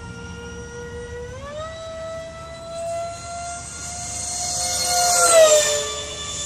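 Twin 70 mm electric ducted fans of a Freewing Su-35 RC jet whining. The pitch steps up about a second and a half in as the throttle is advanced. Then comes a fly-by: the whine and air rush swell to their loudest about five seconds in and drop sharply in pitch as the jet goes past.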